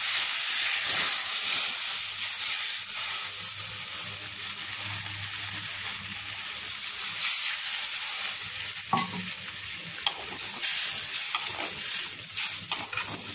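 Yam pieces sizzling in hot spiced oil in a metal karahi as water is added, the sizzle loudest in the first couple of seconds and then settling into a steady sizzle and bubble. A metal spatula clicks and scrapes against the pan a few times in the second half.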